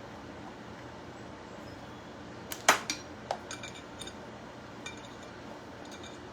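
A serving utensil clinking and tapping against a dish. One sharp clink comes a little over two and a half seconds in, followed by several lighter taps spread over the next few seconds.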